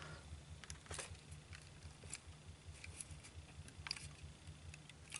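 Faint scattered clicks and taps of small model parts being handled and pressed onto their locating pins, over a low steady hum.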